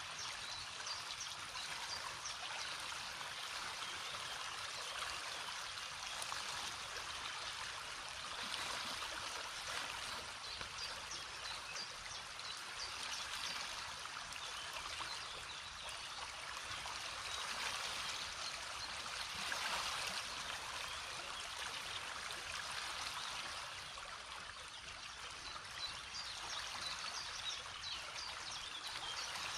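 A river flowing: a steady rush of running water with trickling over it.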